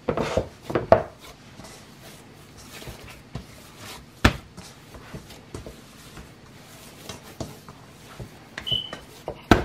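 Hands kneading and slapping a ball of soft red-chile corn masa dough in a stainless steel bowl: soft pats and squishes, with a few sharper knocks of dough or hand against the bowl, the loudest about a second in and about four seconds in.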